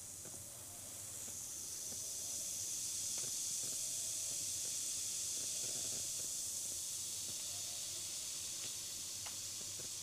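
Effervescent tablet dissolving in a glass of water close to the microphone: a steady fizzing hiss with small pops of bursting bubbles. The hiss swells about a second in and eases slightly near the end.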